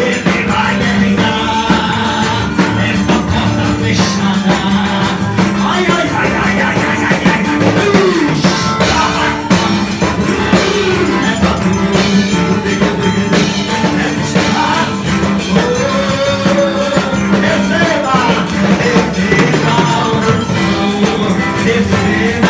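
Loud live worship music: a man's amplified singing over a band with drums, with a strong steady bass.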